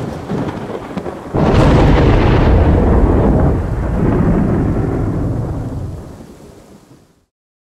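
Thunderstorm: steady rain, then a sudden loud thunderclap about a second and a half in that rumbles on for several seconds and slowly dies away.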